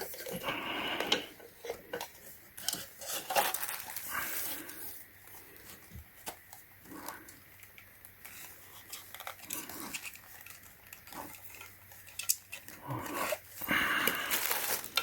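Hard plastic parts of a submersible pond pump being handled and refitted, making irregular clicks, knocks and scraping. The busiest handling comes near the start and again near the end.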